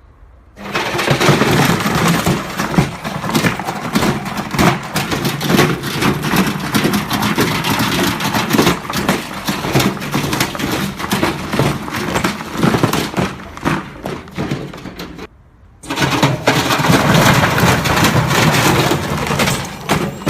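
Washing machine running loudly with a steady motor hum and constant heavy rattling and knocking. It starts about half a second in, cuts out briefly about 15 seconds in, then goes on.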